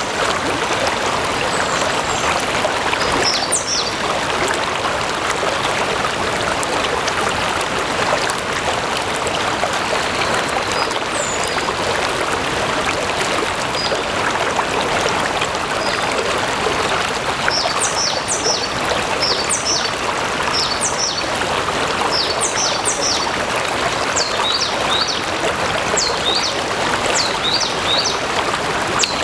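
Water of a stream flowing and splashing steadily. From a little past halfway, small birds chirp repeatedly in short high notes over it.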